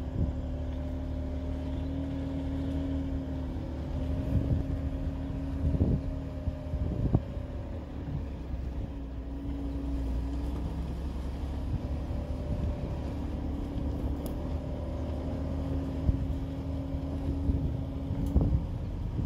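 A vehicle's motor hums steadily while rolling along a dirt road, its pitch shifting a little, over a low rumble from the ground. A few sharp knocks from bumps come between about four and seven seconds in, and again near the end.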